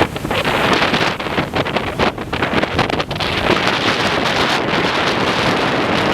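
Strong wind buffeting the microphone in rapid gusts, with the rush of surf beneath.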